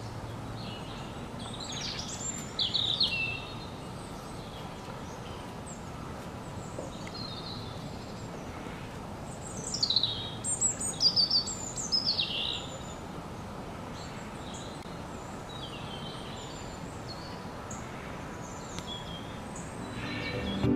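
Small birds chirping over a steady outdoor background hiss: a short run of quick, falling chirps about two seconds in, and a louder burst of them from about ten to twelve seconds in.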